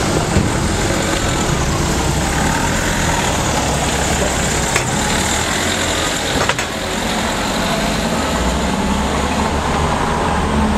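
A Citroën car's engine idling close by and then driving slowly off past, a steady low engine rumble.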